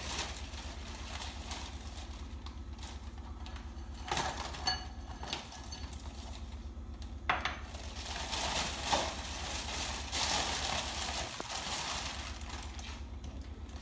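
Clear plastic bag rustling and crinkling while Oreo cookies are tipped from a bowl into it, with a few sharp knocks of cookies and bowl about four and seven seconds in. Louder steady rustling follows as the bag is pressed flat by hand.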